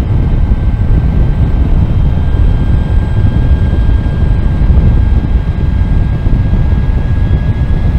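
Energica Eva Ribelle RS electric motorcycle under way: a heavy, steady wind rumble on the microphone, with a thin, steady high whine from the electric drive above it.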